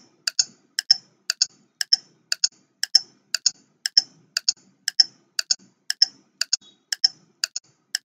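Ticking-clock sound effect of a quiz countdown timer: sharp tick-tock clicks in close pairs, about two pairs a second, keeping a steady beat as the seconds run down.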